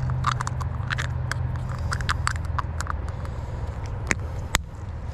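Irregular crackling and clicking of dry leaf litter and twigs underfoot, with a sharper click about four and a half seconds in, over a steady low hum.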